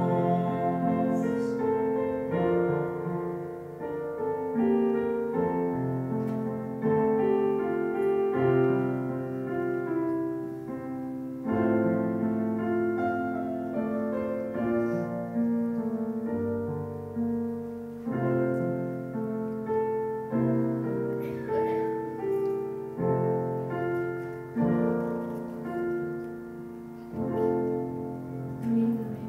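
Piano playing slow, sustained chords, a new chord struck every second or two: the instrumental close of a sung hymn, with the singing finished.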